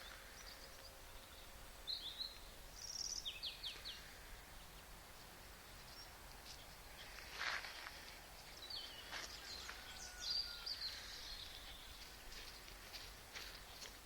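Small songbirds calling and singing in the trees: short high chirps and brief trills come and go, busiest in the middle, over a faint steady outdoor hush.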